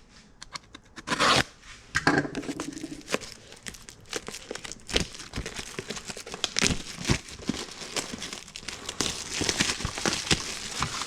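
Product packaging being opened by hand: crinkling, rustling and tearing of the box and its wrapping, with many small handling clicks.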